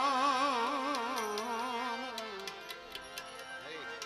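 Male bhajan singer holding the last note of a line with a wide wavering pitch, fading out about two seconds in, over harmoniums sustaining chords. Light, sharp percussion taps come in during the second half.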